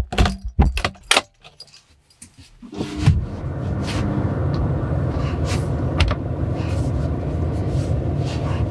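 A car key on a jangling keyring clicks into the ignition and is turned, and about three seconds in the VW Crafter's diesel engine starts and then idles steadily with a low rumble.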